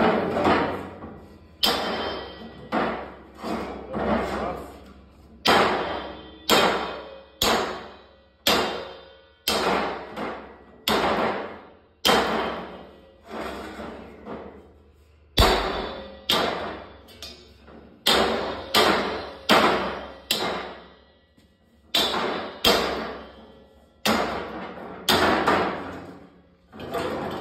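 Hammer striking the steel guard collar around the valve of an empty steel propane tank, about one blow a second, each a sharp metallic clang that rings briefly and dies away. The blows are knocking the collar loose to break it off the tank.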